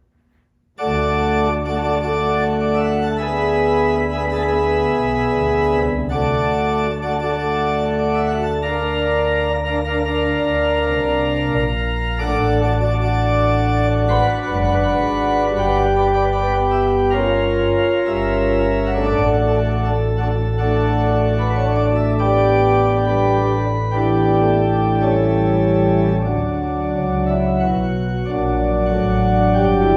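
Organ postlude closing the service, starting about a second in: full sustained chords over a deep bass line, changing every second or two.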